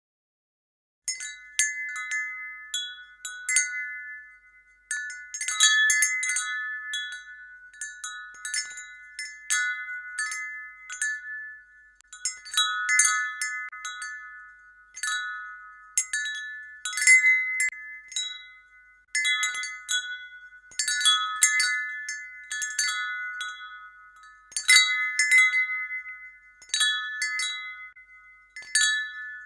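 Wind chimes ringing: irregular clusters of strikes every second or two, several pitches ringing on and overlapping, starting about a second in.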